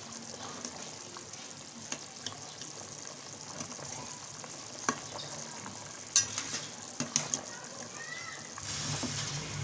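Meat-and-potato broth boiling in a metal pot while a slotted spatula stirs through it, with a few sharp clinks of the spatula against the pot.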